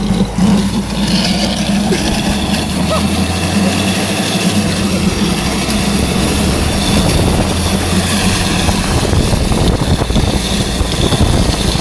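Toyota Hilux ute driving along towing a fridge behind it: a steady mix of engine and road noise with no change in pace.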